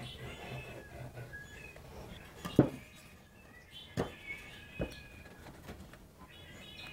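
Wooden boards knocking on a workbench as a glued board is set in place: one sharp knock about two and a half seconds in, then two lighter knocks. Faint high chirps run beneath.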